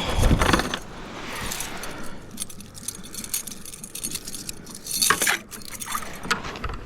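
Small clicks and clinks of fishing gear being handled in a kayak, with a louder thump at the start and a cluster of clicks about five seconds in.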